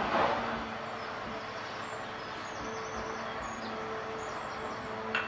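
Stick blender running steadily with an even hum as it blends seasoning into a bowl of liquid offal parfait mix. There is a brief louder burst right at the start and two sharp clicks near the end.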